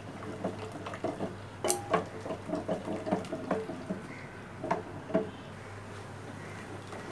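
Wooden dal masher churning thick boiled red lentils in a steel pot: wet stirring with irregular knocks and scrapes of the wood against the pot's sides.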